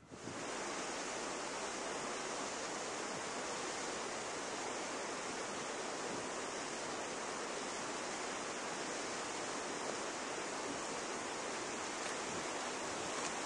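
A steady, even hiss that sets in abruptly at the start and holds without change: recording noise on the soundtrack rather than a sound at the scene.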